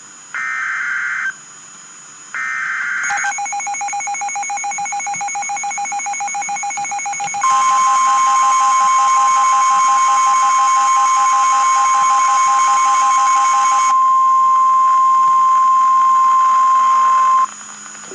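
Emergency Alert System activation: two short, harsh, screeching digital header bursts, then a loud pulsing alert tone. A few seconds later it grows louder as a steady single-pitch warning tone joins it. The pulsing drops out about two thirds of the way through, and the steady tone holds alone until shortly before the end.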